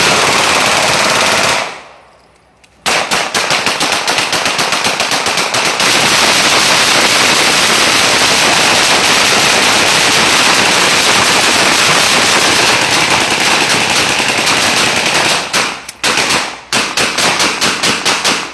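Automatic gunfire from a rifle fired into the air, very loud, in long rapid bursts. A first burst breaks off for about a second, then the firing runs almost without stop for some twelve seconds, pauses briefly, and starts again near the end.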